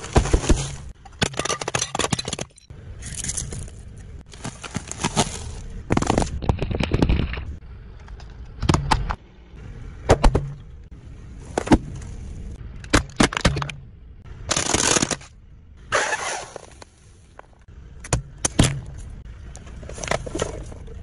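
Car tyre rolling over and crushing a series of objects, including bags of crunchy snacks and plastic toys. It comes as a string of separate bursts of crunching, crackling and sharp cracks, with short pauses between them.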